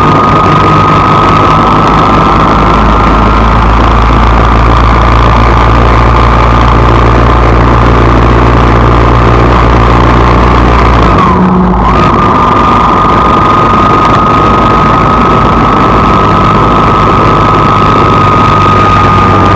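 A car on the road, with steady engine and road noise under a constant high whine. About halfway through, the whine briefly drops away and comes back, and the low engine drone shifts.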